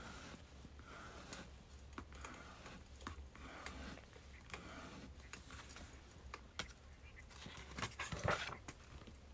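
Birch firewood burning with faint crackling: scattered small pops, and a louder burst of crackling about eight seconds in.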